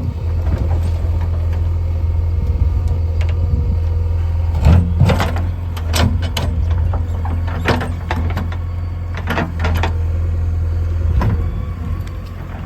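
JCB 3DX backhoe loader's diesel engine running steadily, with a series of sharp knocks and clanks starting about five seconds in, from the bucket striking and scraping stones.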